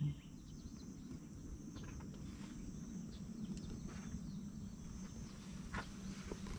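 Faint outdoor ambience with a steady high insect chirring and a few soft rustles.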